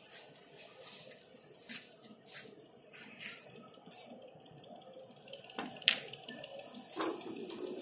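Snooker shot: a sharp click of the cue tip on the cue ball a little under six seconds in, the loudest sound, then a duller knock about a second later. Lighter scattered clicks come before it.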